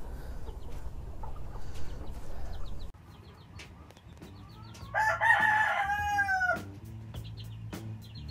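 A young white Jersey Giant cockerel crows once, a call of about a second and a half starting about five seconds in, its pitch falling away at the end. Soft clucks come from the flock around it, and in the first three seconds there is rustling of steps through wood shavings.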